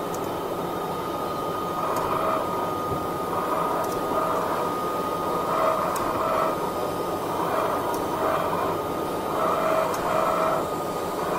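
Boring lathe cutting inside the bore of a metal roller: a steady machine noise with a constant whine, and a harsher cutting noise that swells every second or two as the roller turns against the boring tool.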